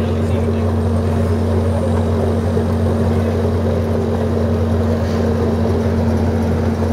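Engine of a small open-air ride-on passenger train running steadily under way, a constant low hum with rumbling over it, heard from a seat in one of the cars.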